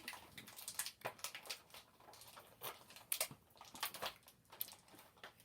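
Faint irregular clicks and crinkles of toy packaging being handled as an action figure and its accessories are worked out of the box.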